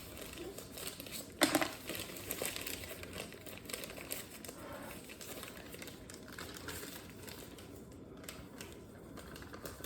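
Crinkling and rustling of a bag of powdered sugar as half a cup is scooped out, with one sharp knock about a second and a half in.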